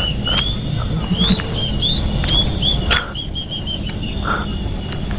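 A bird giving a quick run of short, rising chirping calls, one after another, that fade to smaller notes after about three seconds, with a few sharp clicks among them.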